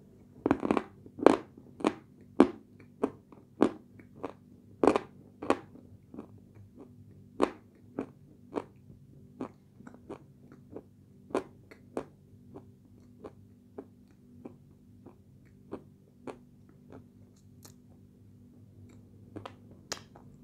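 A woman chewing chunks of light Turkestan edible clay: a long series of sharp, dry crunches, about one or two a second. They are loudest in the first six seconds and grow fainter and sparser after, with a couple of louder crunches near the end.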